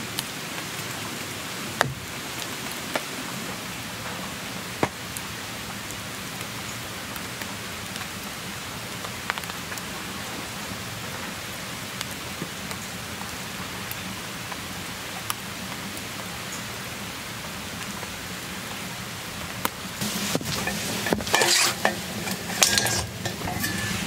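Steady rain falling, an even hiss with scattered sharper drops. From about twenty seconds in, a run of louder knocks and clatters.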